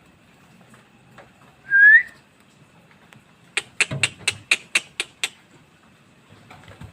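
A short rising whistle, then about a second and a half later a quick run of about eight sharp chirps, roughly five a second.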